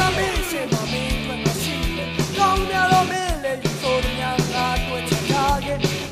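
Burmese rock song: a singer's voice over electric guitar and a steady drum beat.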